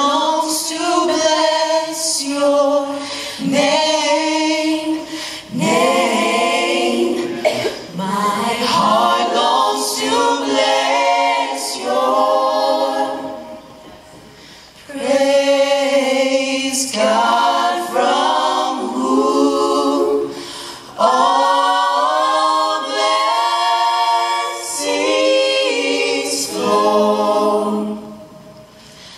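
Small mixed-voice a cappella gospel ensemble of women and men singing a song of praise into microphones, with no instruments, with a short pause between phrases about halfway through.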